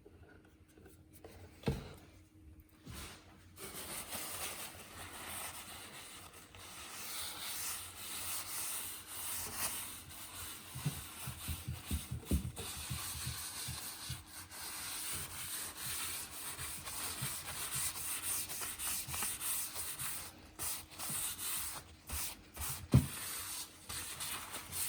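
Applicator rubbing oil into a freshly sanded wooden surface with steady back-and-forth strokes, starting a few seconds in. Two knocks on the work, one near the start and a louder one near the end.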